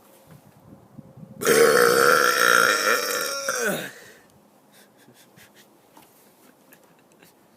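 A man's loud, deliberate burp about two and a half seconds long, starting about a second and a half in, its pitch dropping as it ends.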